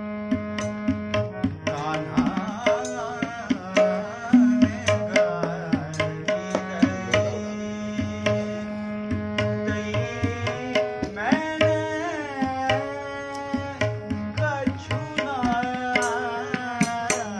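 A man singing a classical Kumauni Holi song in long, gliding phrases, with harmonium holding steady reed tones under him and tabla keeping a steady beat. The voice drops out for stretches, leaving harmonium and drums.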